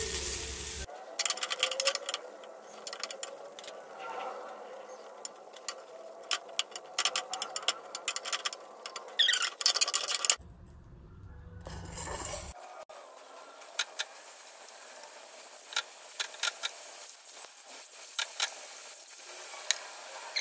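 Chicken pieces frying on a flat tawa, with a steel spoon scraping and clicking against the pan as the pieces are turned and lifted off.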